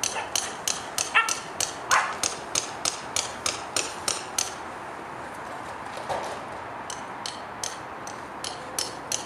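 Cardigan Welsh Corgi gnawing on a hard plastic ball: clicks of teeth on plastic, about four a second, pausing for a couple of seconds midway. Two short squeaks in the first two seconds.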